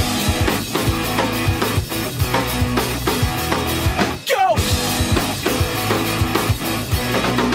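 Rock music with a drum kit and guitar, with a steady beat; it drops out for a moment about four seconds in and then carries on.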